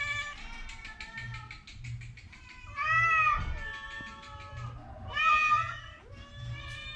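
A cat meowing repeatedly, with loud, drawn-out meows about three and five seconds in.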